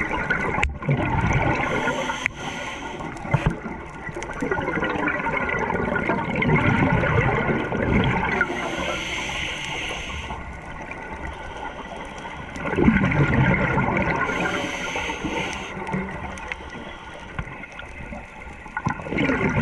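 Scuba diver's exhaled air bubbling out of the regulator underwater, rushing and gurgling in surges every few seconds.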